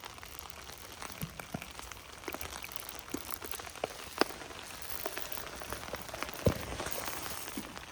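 Light rain falling, an even patter with scattered sharper drop hits close by, the loudest about four and six and a half seconds in.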